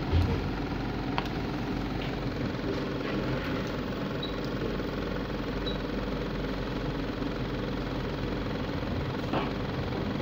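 Steady machine hum from an ISA T3000 primary injection test set running with its high-voltage output switched on, as the output is raised. A few light knocks and clicks from handling the controls come at the start, about a second in and near the end.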